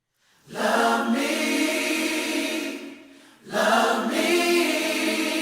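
Music of choir-like voices holding sustained chords: two long held phrases, each about two and a half seconds, with a short dip between them.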